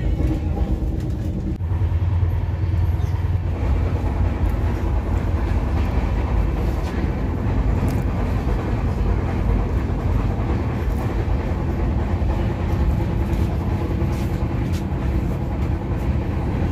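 Indian Railways passenger coach in motion, heard from inside: a steady rumble of the running train and its wheels on the track.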